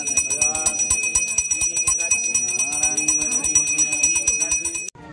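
Brass temple bell rung rapidly and continuously during aarti, a fast even clanging with voices underneath. It cuts off abruptly near the end.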